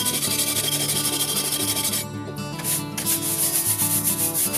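Stiff hand brush scrubbing rust off an old steel hatchet head in fast back-and-forth strokes. About two seconds in, after a cut, a second brush takes over with quicker, scratchy strokes.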